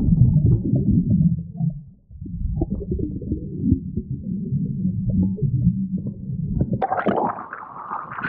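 Muffled low rumble of seawater heard through a camera microphone held under the surface. About seven seconds in, the camera comes up out of the water and the sound turns suddenly brighter, to splashing and sloshing waves.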